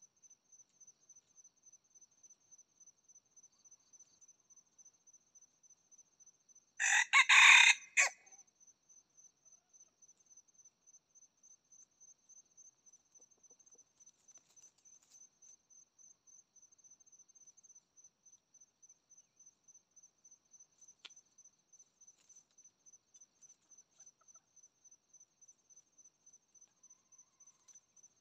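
Red junglefowl rooster crowing once, a short crow of just over a second, about seven seconds in. Behind it, insects chirp steadily in a high-pitched pulse about three times a second.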